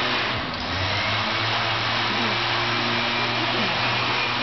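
Steady ambient noise of a large indoor arena: a constant hiss with a low hum and a faint murmur of voices.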